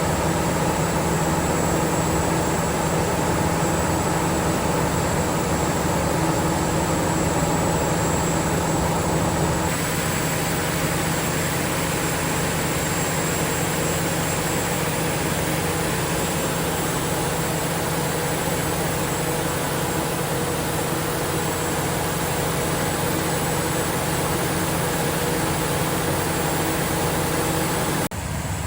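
Caterpillar C27 V12 diesel generator set running steadily at constant speed, a continuous engine drone with a steady high whine above it. The tone shifts slightly about ten seconds in.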